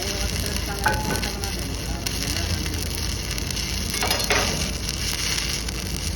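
Oxy-fuel gas cutting torch burning through steel: a steady hiss with crackling sizzle and a few sharp clicks.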